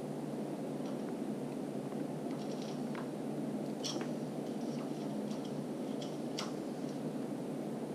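A few faint clicks and light taps of a fishing float rig being handled and lifted out of a water-filled test tank, over a steady background hiss.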